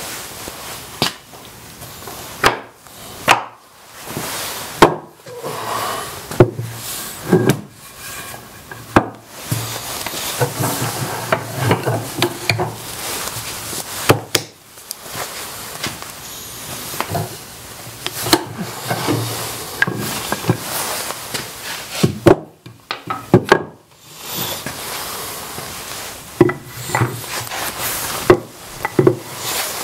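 Hardwood boards being set down on a wooden workbench top and pushed against wooden bench dogs: a run of irregular wooden knocks and clacks, with rubbing and sliding between them.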